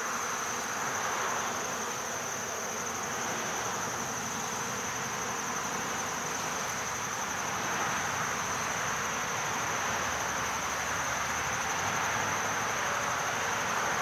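Steady buzzing hum of a mass of honeybees swarming over an open hive and a frame of comb.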